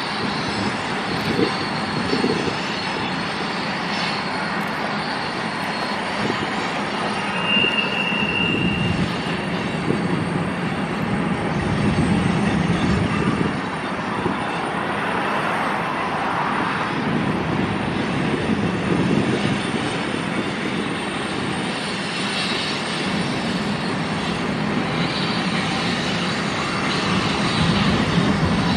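Empty unit grain train of covered hopper cars rolling along curved track: a steady rumble of wheels and the drone of its GE diesel locomotives, with a brief high wheel squeal about eight seconds in.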